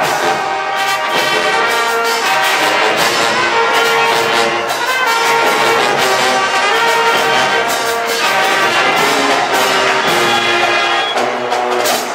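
Marching band brass section, trumpets and trombones, playing loud held chords that shift every second or so.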